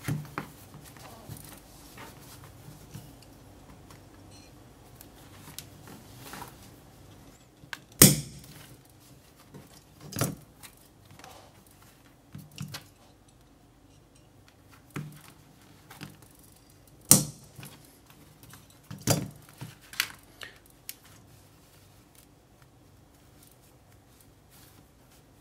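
Hand tools worked and set down on a wooden workbench while holes are made in denim for eyelets: five or so sharp clicks and knocks, the loudest about eight and seventeen seconds in, with quieter rustling of the jeans and handling of small metal eyelets between.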